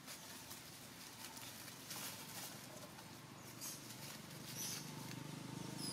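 Dry leaf litter rustling and crackling under a macaque's feet as it walks with a baby clinging to its belly, with a few short high chirps. A low steady hum grows in near the end.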